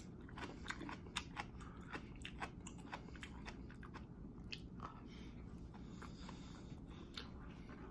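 A person chewing a mouthful of kimchi, with soft, irregular mouth clicks and crunches throughout.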